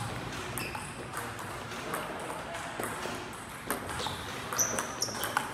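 Table tennis rally: a plastic ball clicking off paddles and the table in a quick, irregular series of sharp pings.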